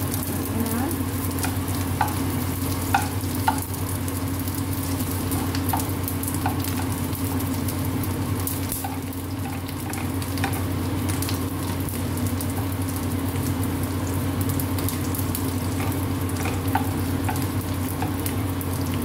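Dried squid sizzling and crackling in hot oil in a non-stick frying pan, turned with a spatula that scrapes and taps the pan now and then, most sharply in the first few seconds.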